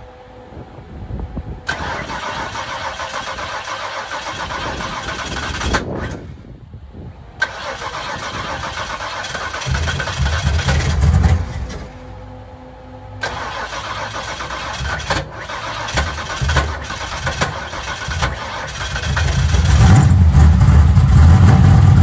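Fox-body Mustang's starter cranking the engine in three tries with short pauses between, the engine firing briefly on the second and catching near the end to run loudly. The starter labors and clunks on a hard start, which the owner puts down to a missing ground cable and a cold-start fuel tune not yet dialed in.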